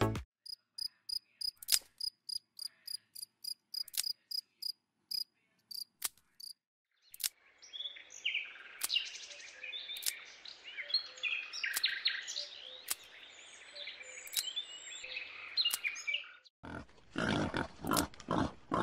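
High, regular chirping, a few short chirps a second, lasting about six seconds. After a brief gap, a denser and busier mix of high chirps and small clicks takes over, and sharper, louder clicks come near the end.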